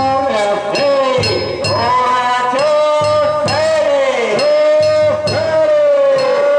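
Danjiri hauling song (hikiuta): a man's voice holding long, wavering, bending high notes over the float's festival music of a steady drum beat and clanging metal hand gongs.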